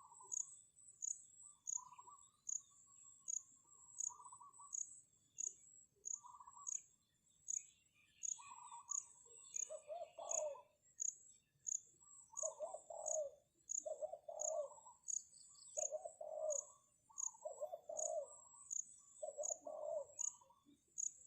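Spotted dove cooing in repeated low phrases, coming regularly about once a second from around the middle on. An insect chirps steadily about twice a second behind it.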